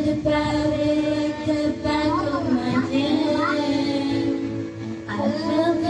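Karaoke: girls singing into handheld microphones over a music backing track.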